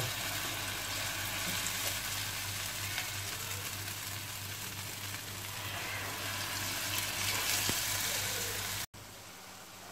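Urad dal batter fritters (dahi bara) frying in hot oil in an iron wok: a steady sizzling hiss that cuts off suddenly near the end.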